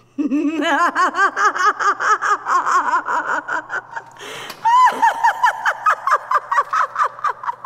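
A person laughing in one long cackle of quick 'ha-ha' bursts, about four a second. About two-thirds of the way through, the voice jumps much higher and stays there.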